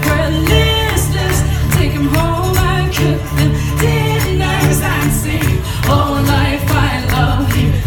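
Live band music with a woman singing lead over a steady bass line and rhythmic percussion.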